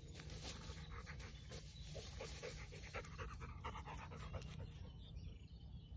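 A dog panting, faint and quick, in an even rhythm.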